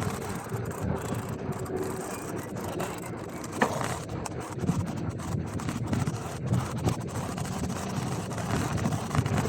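Wind buffeting the microphone over the rumble of a gravel bike's tyres on the move, with a sharp knock about three and a half seconds in.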